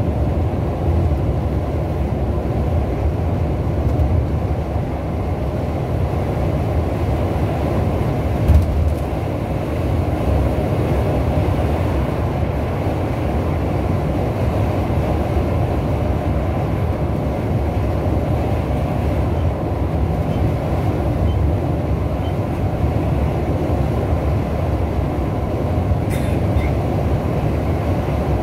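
Steady low rumble of a coach's engine and tyres at motorway speed, heard from inside the passenger cabin, with one brief knock about a third of the way through.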